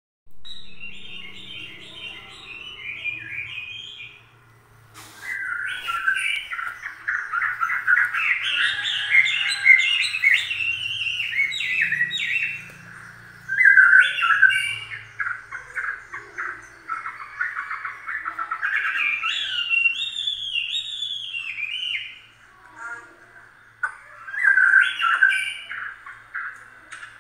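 Rapid, high chirping and twittering calls, many short falling chirps in dense runs, with brief lulls about four seconds in and again a little past twenty-two seconds. A single sharp click about five seconds in.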